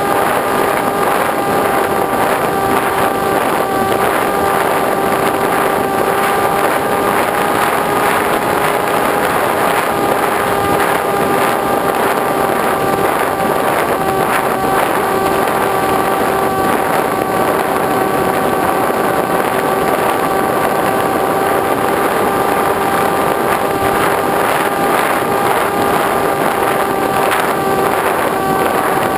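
RC model plane's motor and propeller running at a steady, even pitch, heard from a camera mounted on the plane in flight, with air rushing over the microphone.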